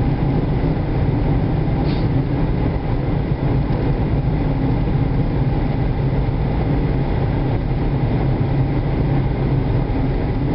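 Steady engine and tyre noise heard inside a moving car's cabin: a low, even drone with no change in pace.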